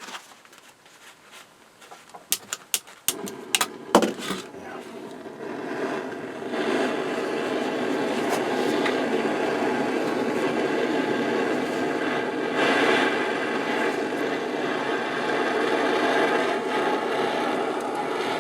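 Several sharp clicks, then a handheld gas torch burning with a steady hiss that gets louder about six seconds in, heating a rusted, stuck thread clamped in a vise to loosen it.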